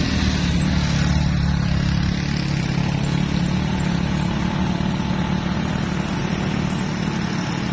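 Motor vehicle engine running with a steady low drone.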